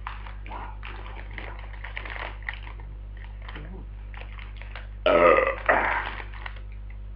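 Rustling of a crisp packet being handled, then a loud belch in two pushes about five seconds in.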